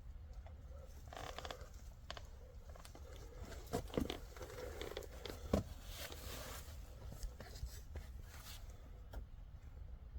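Faint, irregular crunching and rustling of someone moving about in snow, with a few sharper crunches in the middle.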